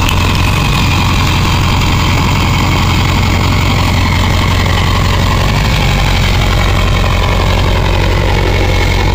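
Ford 7.3 Powerstroke turbo-diesel V8 idling steadily, an even low rumble with no revving.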